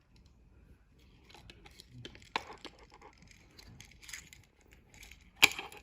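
Handling of a small plastic humidifier as a soaked cotton wick is pushed into its inner hole: scattered light clicks and rustles, a sharp click about two and a half seconds in, and the loudest click near the end.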